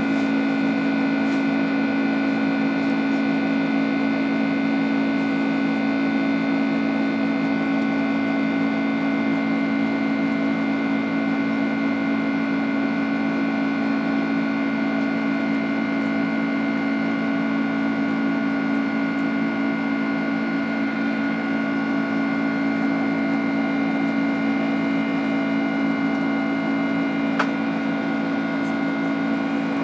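Cabin sound of a Boeing 767-300ER's General Electric CF6 turbofan at climb power, heard from a seat beside the wing: a steady drone with a strong low hum and several steady whining tones above it. A single small click comes near the end.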